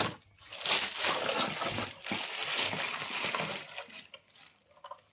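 Packaging rustling and crinkling as contents are handled and pulled out of a box, in two loud stretches, then a few light clicks and taps near the end.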